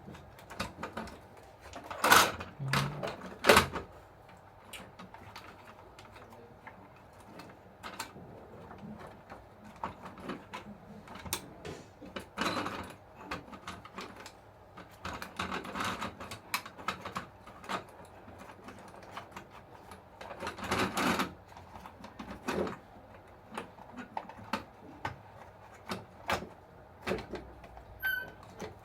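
Scattered clicks and knocks of small parts and tools being handled on a Huina 1569 RC bulldozer under repair. The loudest knocks come about two and three and a half seconds in, and again about twenty-one seconds in.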